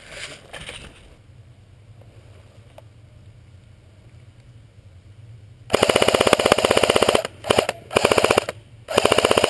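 Airsoft electric gun firing on full auto close by: a burst of about a second and a half, then three shorter bursts, each a fast, even rattle of shots.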